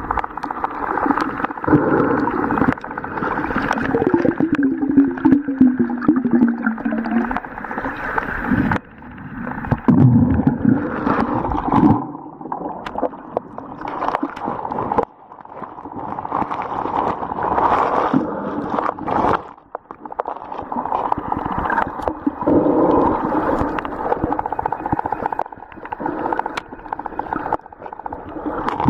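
Underwater sound of sea water gurgling and bubbling, with a wavering low hum about four to seven seconds in; the sound changes abruptly several times.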